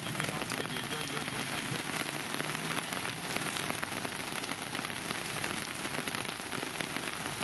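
Heavy rain falling steadily, with many individual drops striking a surface close by.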